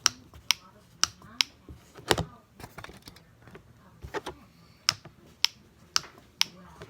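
Sharp tapping clicks on a small hard object for ASMR, about two a second, with a duller knock about two seconds in and a short pause before the tapping resumes.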